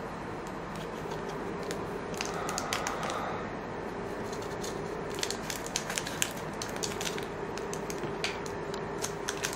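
An SP Authentic hockey card pack's wrapper being torn open and crinkled by hand: a run of quick, irregular crackles and clicks.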